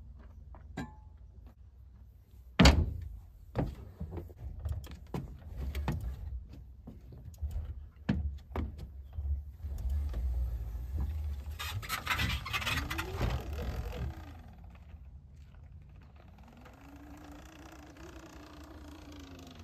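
Sur-Ron Ultra Bee electric dirt bike being rolled out of a pickup bed, over the tailgate and down a ramp: a string of metal thunks, clanks and rattles, the loudest about three seconds in, with a noisier scraping stretch around twelve to fourteen seconds in.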